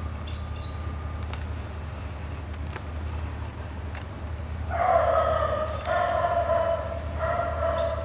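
Great tit calls: a pair of short, high notes falling in pitch about half a second in and again at the very end, over a steady low rumble. From about five seconds in, a louder, lower steady-pitched sound comes in several held stretches of about a second each.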